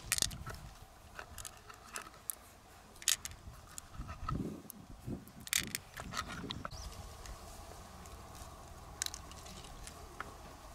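Wet squelching of freshwater mussel flesh being squeezed by hand, broken by sharp clicks of pearls and shell. The loudest clicks come at the start and about three, five and a half and nine seconds in.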